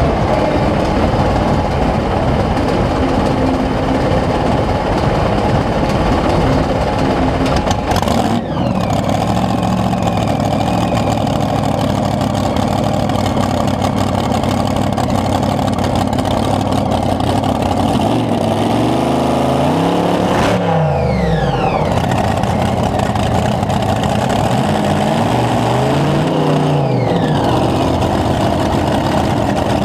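A competition pulling vehicle's engine runs hard at high revs, loud and steady, with a brief break about eight seconds in. Later its pitch twice drops and climbs back, once around two-thirds of the way through and again near the end.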